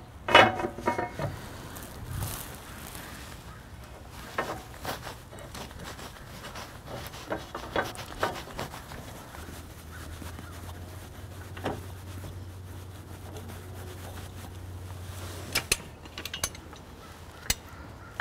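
Scattered knocks and clanks of steel parts on the bandsaw mill's saw-head frame as the acme lift rod and its nut are handled and fitted. The loudest is a ringing metal clank right at the start, with clusters of lighter taps and clicks later on.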